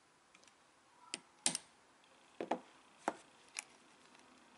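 A handful of short, sharp clicks and taps of small metal parts: a steel watch-band pin and pin-pushing tool knocking against the links of a metal watch bracelet seated in a plastic band holder block, as the pin is set into a link.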